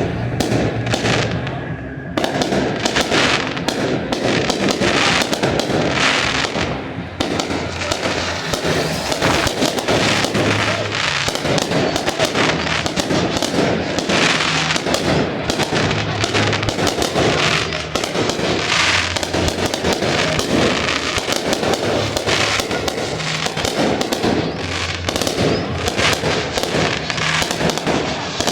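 Fireworks display: a dense, unbroken barrage of bangs and crackling bursts.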